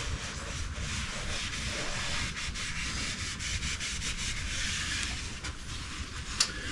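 Ball hone working inside an engine cylinder bore, a steady abrasive rubbing and scraping against the oiled cylinder wall.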